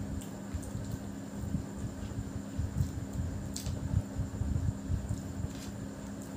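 Eating by hand: fingers squishing and mixing biryani rice on a plate, with soft irregular mouth and handling noises and a few faint clicks, over a steady low hum.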